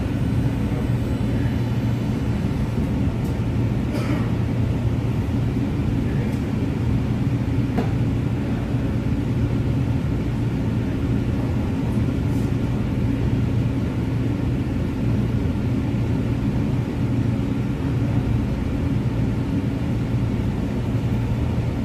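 Steady low hum inside a CTrain light-rail car standing at a station platform, from the car's onboard equipment running, with a few faint clicks.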